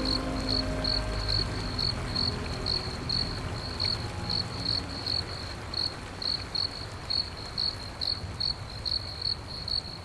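Cricket chirping steadily at night, a high even chirp about three times a second. A low drone fades out in the first second or so.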